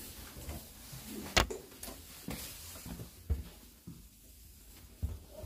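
Scattered knocks and footfalls of someone moving through the narrow corridor of an empty railroad passenger car, with a small-room ring. The loudest, a sharp knock, comes about one and a half seconds in.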